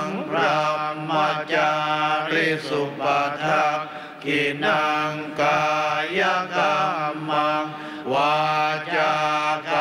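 Buddhist monks chanting in Pali in unison: a steady recitation on an even pitch, going phrase by phrase with brief pauses for breath.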